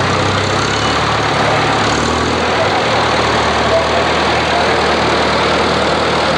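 Old farm tractor engine running steadily at low speed as the tractor drives past, with a low, even note.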